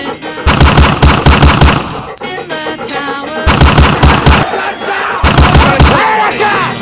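Three bursts of rapid automatic gunfire, about five or six shots a second, broken up by stretches of voices and music.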